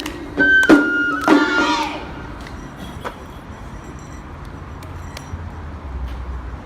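Live stage music ending: a few last sharp percussive hits and pitched notes in the first two seconds, then the low murmur of an outdoor audience.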